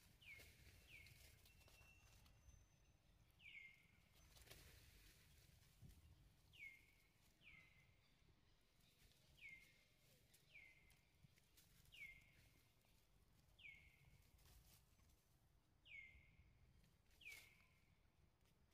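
Faint bird calls in the forest: a short note sliding down in pitch, repeated about a dozen times, often in pairs.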